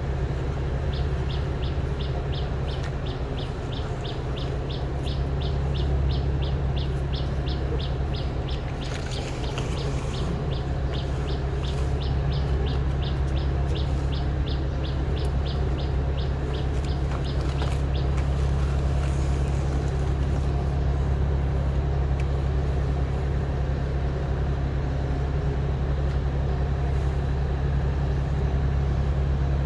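A steady low engine-like hum with a rapid, even series of short high ticks or chirps, about three a second, that stops about eighteen seconds in.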